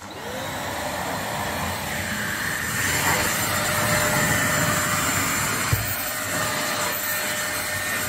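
Corded blue stick vacuum cleaner switched on, its motor spinning up at the start, then running steadily while it is pushed over a carpet, sucking up dirt. There is a brief knock a little past the middle.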